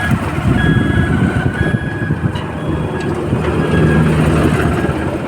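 Heavy road-construction machinery running with a deep, steady engine rumble, while a reversing alarm beeps about once a second.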